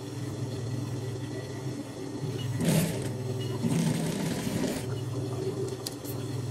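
Sewing machine motor humming steadily as patchwork pieces are fed and stitched. Fabric rustles twice in the middle as the pieces are handled.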